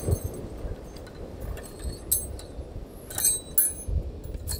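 Light clinks, about four of them, each with a brief high ringing, in the second half, over a low rumble.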